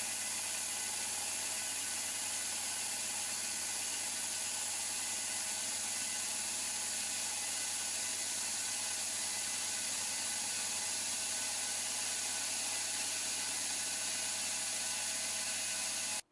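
Milling machine running with its end mill cutting a flat into the side of a metal workpiece: a steady machine hum with an even cutting hiss that cuts off abruptly at the very end.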